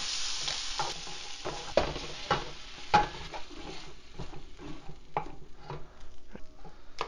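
Shrimp and zucchini sizzling in a skillet as a spatula scrapes and stirs them, the sizzle fading over the first couple of seconds with the burner just turned off. Then come scrapes and knocks of the spatula against the pan as the food is scraped out into a pot, the loudest knocks about two and three seconds in.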